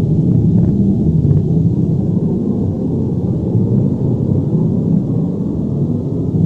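Electronic avalanche or landslide sound effect: a loud, deep, continuous rumble with a few faint crackles in the first second or so, easing slightly a little past the middle.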